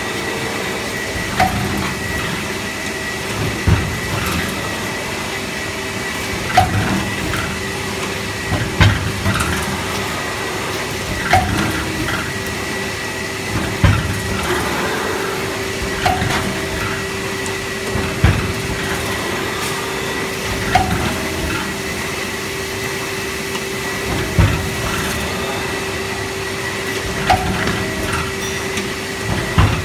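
HTQF 920T rotatable blanking press cycling: a steady machine hum with a thump from each press stroke, about every two to two and a half seconds, as the die head comes down through a stack of printed carton sheets.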